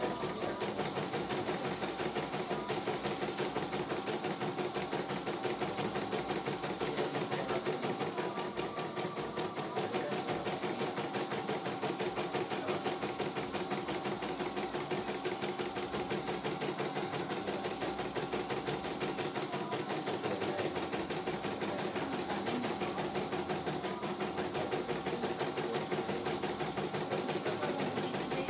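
CNY E900 computerized embroidery machine stitching a design: a fast, steady run of needle strokes over the hum of its motor.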